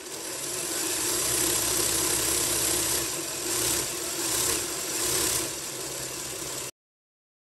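Lego Technic inline-four 16-valve DOHC engine model turned by an electric Lego motor: a steady motor whir with the plastic pistons, timing chain and valve train rattling. It builds over the first second, wavers in the middle and cuts off suddenly near the end.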